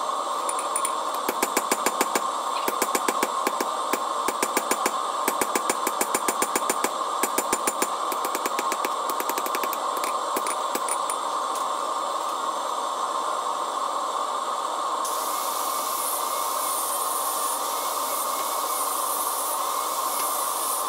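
Hand hammer striking red-hot steel on an anvil in quick runs of several blows a second, forging a hammer drift. The blows stop after about ten seconds, leaving a steady hiss.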